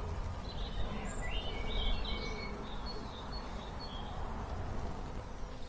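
Small birds chirping and singing in short, quick phrases over a steady low rumble of outdoor background noise.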